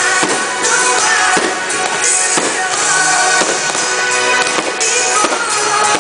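Music playing with firework shells bursting over it again and again.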